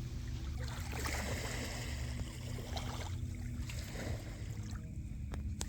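Gentle waves lapping at the shore, a low, steady wash, with a brief click near the end.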